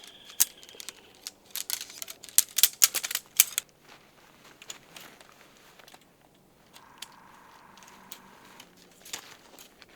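A quick run of sharp clicks and clacks for about two seconds, then a few scattered single clicks and a faint steady hum late on.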